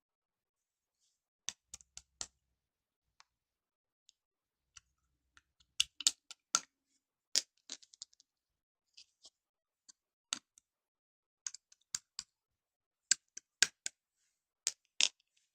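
Slime being squeezed and pressed by hand, making irregular sharp clicking pops, some in quick clusters.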